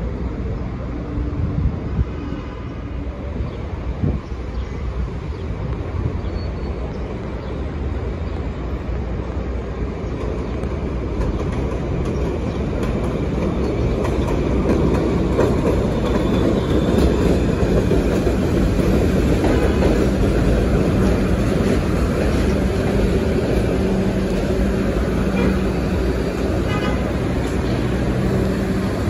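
New York City subway 1 train of R62-series cars rolling in on elevated steel track, growing louder from about ten seconds in as it nears, with wheels clattering on the rails. It slows as it pulls into the station, with a steady low hum near the end.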